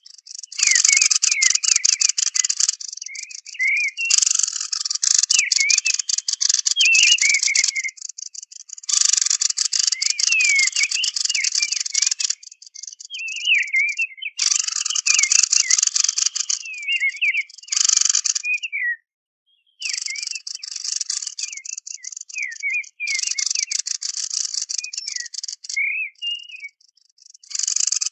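Bird-call lure recording of the bird hunters call kikhen of the juniper. Blocks of harsh, rapid rattling chatter a few seconds long come again and again, with a run of short rising and falling chirps and whistles between and beneath them. The rattles start and stop abruptly, as in an edited, looped track.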